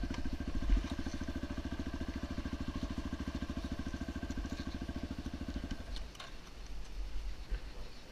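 2009 Yamaha XT250's single-cylinder four-stroke engine idling with an even pulse, then cutting off suddenly about six seconds in as it is switched off. A thump comes near the start, and a few light clicks and knocks follow the shutdown.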